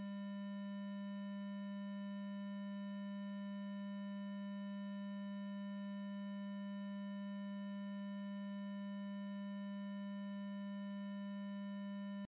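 A steady, unchanging electronic hum: one low tone with fainter higher tones above it. It switches on and cuts off abruptly.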